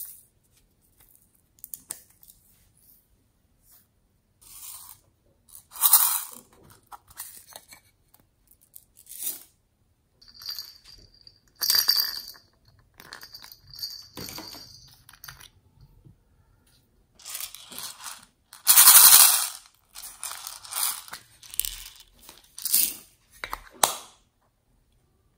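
Small hard plastic toys handled and opened by hand: scattered clicks, taps and rustling scrapes of plastic, the loudest a noisy scrape about three quarters through.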